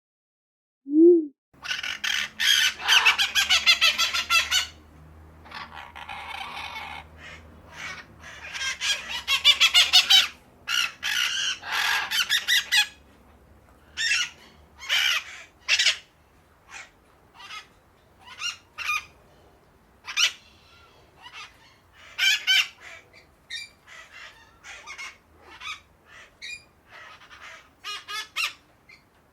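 A group of parakeets chattering and squawking, dense overlapping calls for the first dozen seconds, then thinning to scattered single calls. A short low tone sounds just before the birds start.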